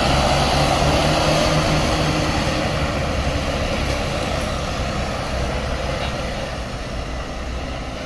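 Large tour bus's diesel engine running as the bus pulls away, its hum and road noise fading steadily as it moves off.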